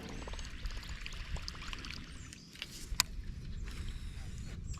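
Water lapping around a kayak, with low wind rumble and one sharp click about three seconds in.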